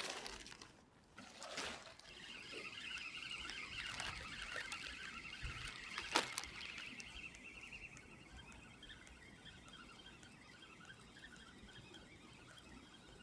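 Water trickling and dripping, fading over several seconds, with a sharp click about six seconds in.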